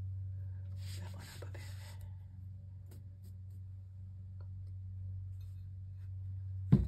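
A paint-coated tile and paper towels handled on a tabletop: a short rustling scrape about a second in, a few faint ticks, and a sharp knock near the end, over a steady low hum.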